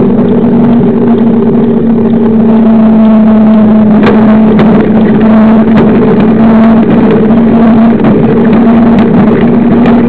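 Knobby 29-inch mountain bike tyre humming steadily on asphalt at speed, over a loud rush of wind on the microphone.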